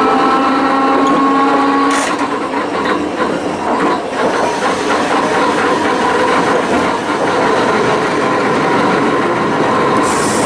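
Iyotetsu Type 50 tram's nose-suspended traction motors whining, the pitch rising slowly, until power cuts off about two seconds in. After that the car rattles and clicks over the track, with a fainter whine, and a short hiss comes near the end.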